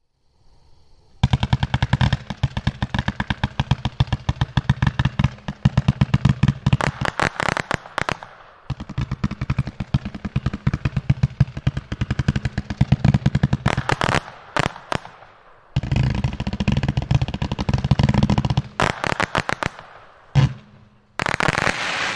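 Cutting Edge 'Grave Mistake' 169-shot, 500-gram firework cake firing in rapid volleys of many shots a second, with brief pauses between volleys and a few sharper single bangs in the second half.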